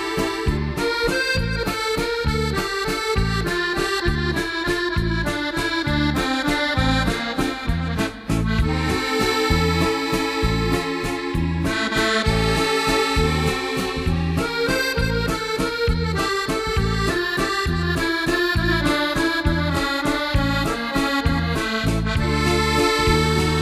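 Accordion music with a steady rhythmic bass accompaniment.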